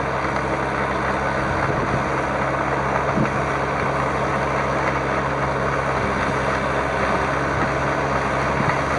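Shibaura V52F tractor's 52-horsepower four-cylinder diesel engine running steadily under load while it tills a wet rice paddy, a constant even hum.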